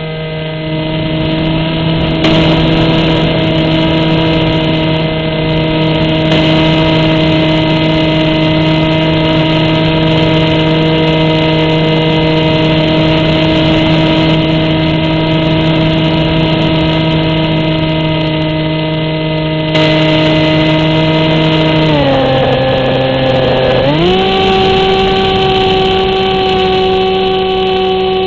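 The motor and propeller of a Versa RC model plane, heard from a camera on board, running steadily at one pitch. About 22 seconds in, the pitch drops for a couple of seconds, then rises higher than before.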